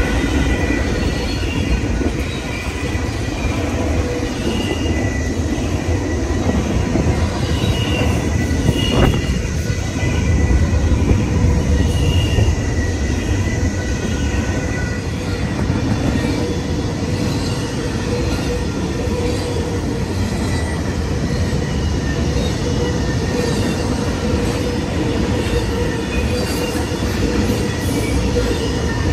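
A BNSF diesel-hauled intermodal freight train passes close by. A locomotive's engine is heard for the first several seconds, then the cars' wheels rumble over the rails with a steady high squeal.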